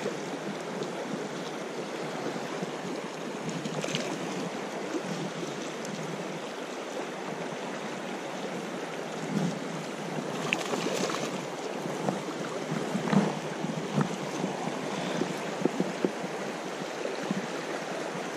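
River rapids running over stones, giving a steady rush of water. A few short, sharper sounds come in the second half.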